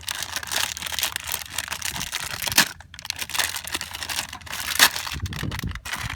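Crinkling, rustling plastic being handled, with scattered small clicks and two sharper clicks, about two and a half seconds and nearly five seconds in.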